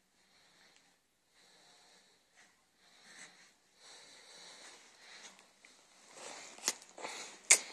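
Faint breathing and snuffling sounds close to the microphone, starting a few seconds in, with two sharp clicks near the end.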